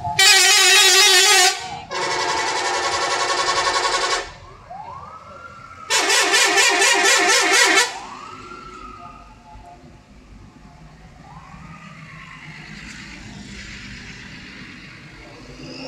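Telolet multi-tone bus horns sounding in three loud blasts, each a chord of several notes. The first and last blasts warble, the last one pulsing rapidly, and the middle one holds steady. After about eight seconds only quieter background noise remains.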